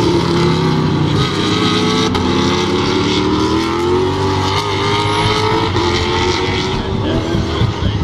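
Several V8 racing saloons running through a corner and pulling away, their engine notes overlapping and slowly rising as they accelerate.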